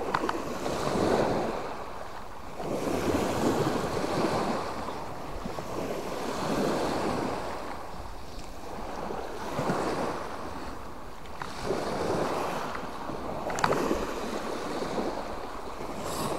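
Small Mediterranean waves breaking and washing up the beach in slow swells, one every two to three seconds.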